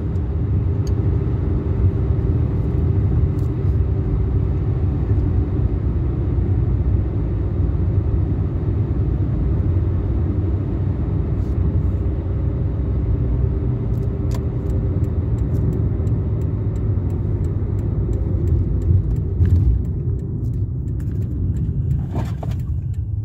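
Cabin sound of a 2010 Toyota Yaris driving, its 1.5-litre four-cylinder engine with a DIY cold air intake giving a steady low drone over road noise. The drone eases off a few seconds before the end as the car slows, and light regular ticking comes in.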